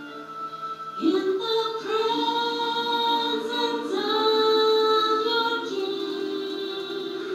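A women's choir singing long held notes, coming in about a second in, heard through a television speaker.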